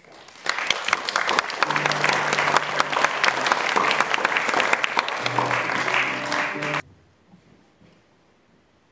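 Audience applauding, with low sustained music notes playing underneath from a couple of seconds in; both cut off suddenly about seven seconds in.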